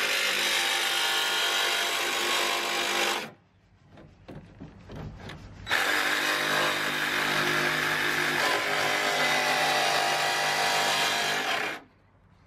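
DeWalt cordless jigsaw cutting the corners of a square hole in a van's sheet-metal roof, in two steady runs: it stops about a third of the way in, with a few small knocks in the pause, and starts again a couple of seconds later, stopping shortly before the end.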